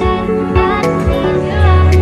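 Background music with a steady beat; a deep bass comes in near the end.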